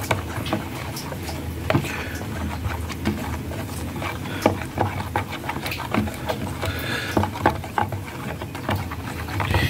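Plastic spatula stirring and scraping a thick sauce in a plastic tub, with irregular wet scrapes and clicks against the sides, over a steady low hum.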